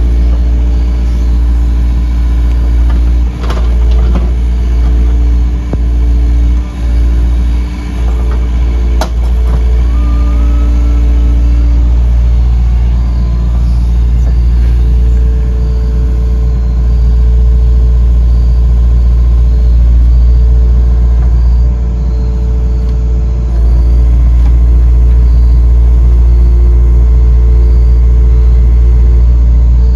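Yanmar mini excavator's diesel engine running steadily, its note shifting several times as the hydraulics lift and set a large rock with the bucket. A few sharp knocks in the first ten seconds.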